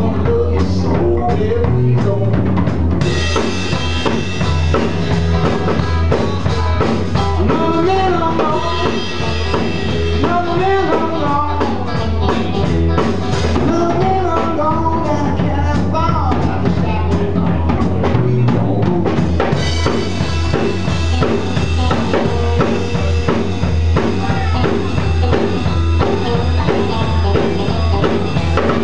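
Live blues-rock band, with electric guitars, bass guitar and drum kit, playing at a steady loudness; a lead line bends up and down in pitch over the drums and cymbals.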